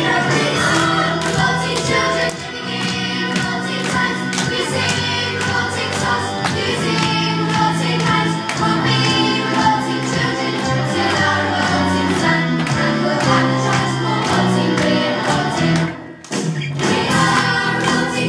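Song with a group singing over an accompaniment with a steady beat; the music drops out briefly about sixteen seconds in, then comes back.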